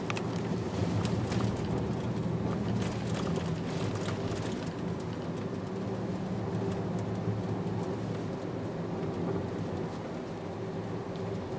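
Steady driving noise of a car heard from inside the cabin: a low engine and tyre hum, with a few faint ticks in the first few seconds.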